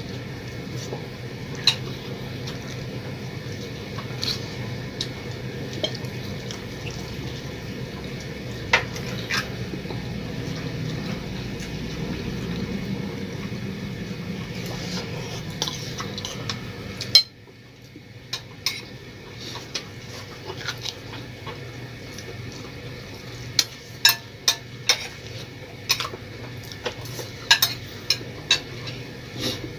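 Spoons clinking and scraping on plates and bowls as several people eat, in scattered sharp clinks that bunch together near the end. Under them runs a steady hum, which drops away after a single loud knock about halfway through.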